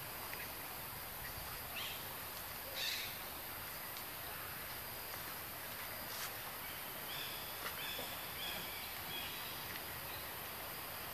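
Forest ambience: a steady hiss with a few short, high-pitched animal calls and chirps scattered through it, the loudest about three seconds in and a cluster of brief calls near the end.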